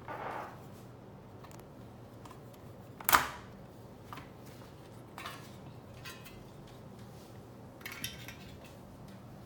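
Small hard parts being handled during a computer repair: one sharp click about three seconds in, and a few softer clicks and rustles around it, over a faint steady hum.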